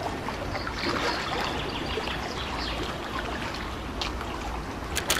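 Running water trickling and babbling steadily, like a small stream, with a few short sharp clicks near the end.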